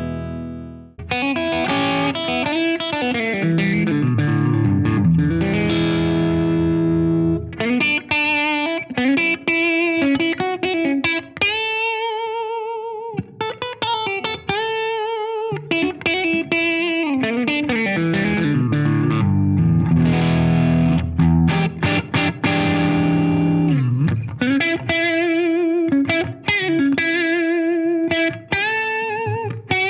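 Gibson electric guitar played through an amp on the middle pickup position, both humbuckers on with volume and tone full up. It plays chords and held single notes, with a short break about a second in.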